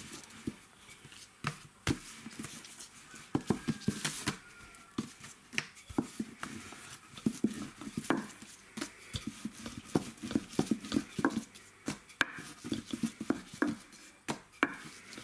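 Wooden rolling pin rolling out and knocking against a table as small rounds of layered dough are rolled thin, giving irregular taps and clunks with soft handling noise between them.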